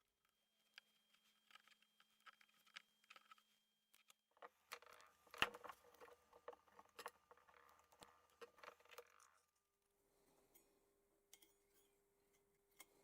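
Faint clicks, taps and rustling of hands working cable and small metal parts while wiring the arms of a brass chandelier. The handling is busiest in the middle, with one sharper click about five and a half seconds in.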